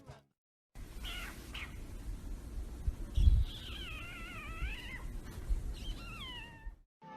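A cat meowing: two short meows about a second in, then a long wavering meow, and a falling meow near the end. There is a low bump about three seconds in.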